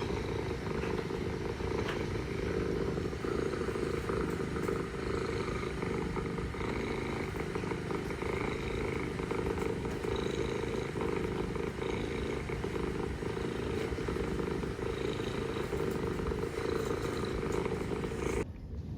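Mother cat purring steadily and continuously; the purr cuts off abruptly near the end.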